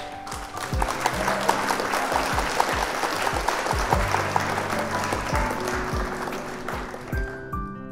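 Applause over background music with a steady beat; the clapping fades out near the end.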